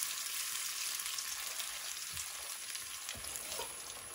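Hot oil sizzling steadily in a saucepan as seasoned plantain pieces deep-fry, with a spatula stirring through it at first. The sizzle fades slowly, with a couple of faint knocks.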